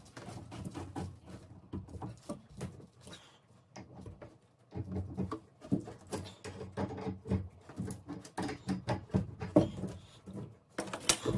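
Irregular clicks, taps and scraping of pliers and brass plumbing fittings being worked by hand, as threaded connection nuts on a shower diverter valve's SharkBite fittings are loosened. Busier from about halfway through, with a loud cluster of sharp clicks near the end.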